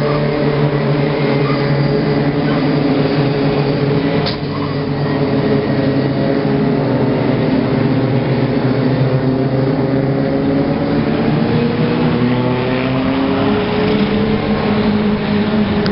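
A pack of sports racing cars running through a bend, with several engine notes overlapping and each drifting up and down in pitch as the cars pass one after another.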